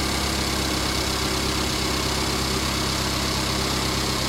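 Mercedes E250's M274 turbocharged four-cylinder engine idling steadily, cutting in abruptly at the start.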